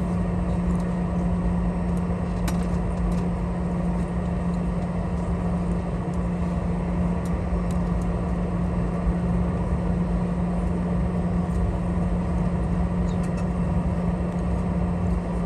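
Steady cabin noise inside a Boeing 717 airliner on the ground after landing: a constant low hum from the engines and cabin air system over an even rushing noise, with a few faint ticks and rattles.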